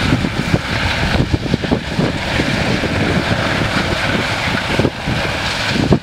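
Claas Lexion 540 combine harvester running under load while harvesting grain maize: a steady machine drone with irregular low rumbles.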